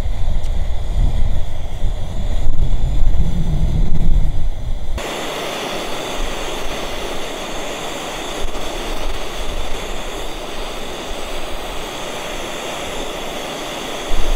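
Wind buffeting the microphone with a gusty low rumble, then a sudden switch to the steady hissing roar of a canister gas stove burner heating a pot.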